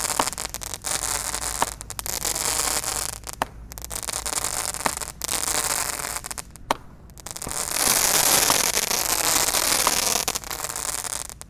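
A 19-shot crackling roman candle cake firing: shot after shot goes up with a dense crackle and hiss, in stretches a second or two long with a few sharp pops between. The crackle is heaviest late on, then stops abruptly.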